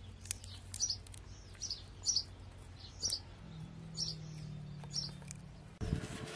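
A small bird chirping over and over, short high notes about twice a second. Near the end a sudden burst of broader noise comes in.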